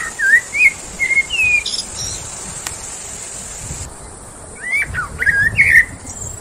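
Birds chirping, in two runs of short, gliding whistled notes: one at the start and another about five seconds in.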